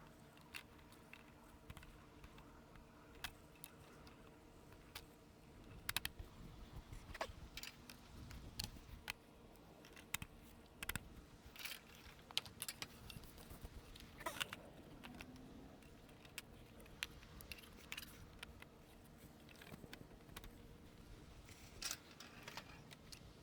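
Faint, scattered clicks and knocks of composite raised-bed boards and plastic snap-lock stacking brackets being handled and fitted together.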